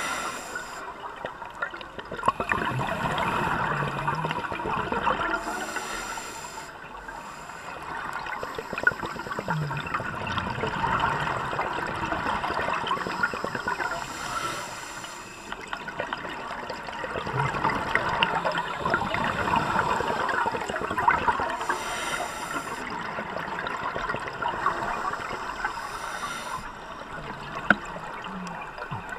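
Scuba regulator breathing underwater. Short hissing inhalations alternate with longer bubbling rushes of exhaled air, in a slow cycle of a few breaths.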